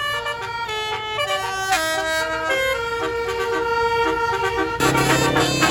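A bus's telolet basuri multi-tone horn playing a tune: a run of clear held notes stepping up and down in pitch. Near the end a lower, louder tone joins in under the melody.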